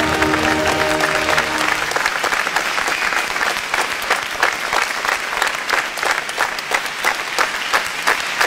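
A crowd applauding, rising as the last held notes of music fade out about two seconds in; individual claps stand out more toward the end.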